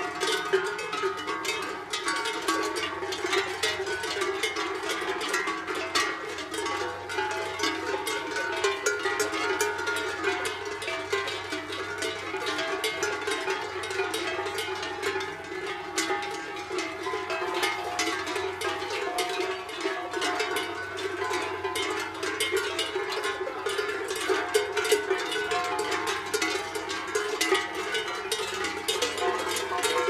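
Many cowbells on a grazing herd of cattle clanking and ringing continuously and irregularly, a jumble of overlapping strikes and ringing tones.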